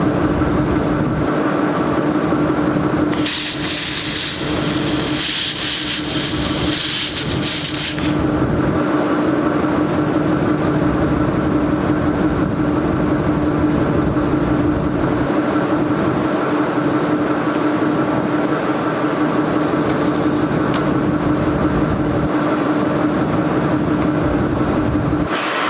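Handheld laser welding machine running: a steady machine hum with a constant low tone, and a burst of hiss lasting about five seconds starting about three seconds in, as when the welding gun fires.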